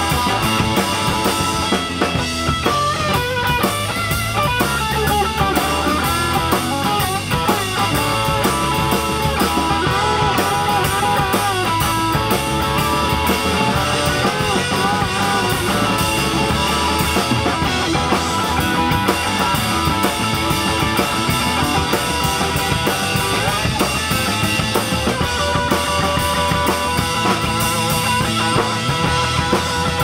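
Live rock band playing an instrumental break: a lead electric guitar line with bending, wavering notes over electric bass and a drum kit.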